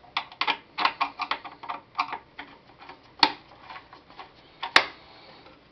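Irregular small clicks and taps of the lamp wire and screw terminals of a UV lamp's holders being handled and worked with a small screwdriver, with two sharper clicks a little after three seconds and near five seconds in.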